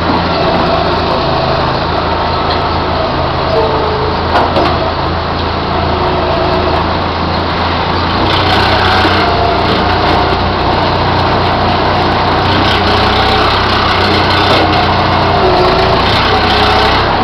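Hanomag 22C wheel loader's diesel engine running steadily under load while its boom lifts round hay bales, with a higher whine wavering in pitch over the low engine hum and getting a little louder about halfway through.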